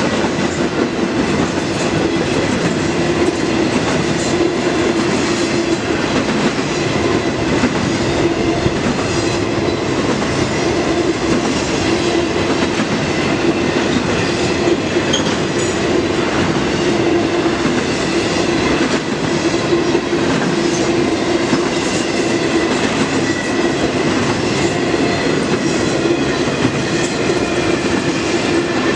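Railroad cars of a long train rolling steadily past, with a continuous wheel-on-rail rumble and clickety-clack.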